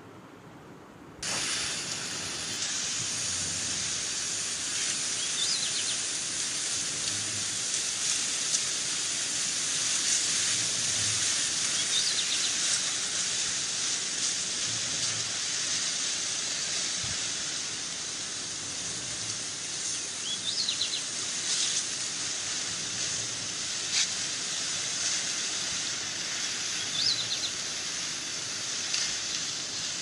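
Muddy floodwater rushing along a roadside channel: a steady hissing rush that starts suddenly about a second in. A few faint bird chirps sound over it.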